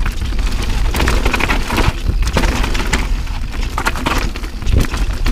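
Mountain bike descending rocky singletrack: tyres crunching over loose rock and the bike rattling, with a quick string of sharp knocks and clatters over a steady low rumble of wind on the camera microphone.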